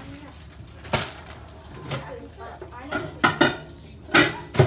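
Several sharp clatters and clinks of hard objects being handled in a kitchen: one about a second in, a few together around three seconds, and two more near the end.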